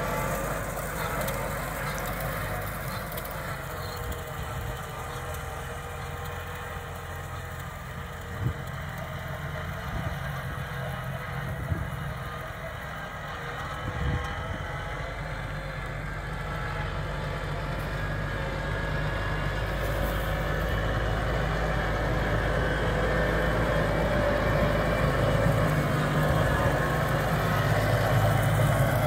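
New Holland T6.165 tractor's diesel engine running steadily as it pulls an Amazone ZA-M fertiliser spreader across a field. It grows steadily louder through the second half as the tractor comes close. A few faint knocks sound along the way.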